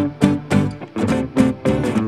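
Background music: a plucked guitar playing a steady run of notes, about three or four to the second.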